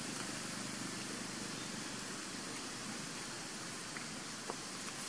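Steady, even outdoor background hiss, with one faint tick about four and a half seconds in.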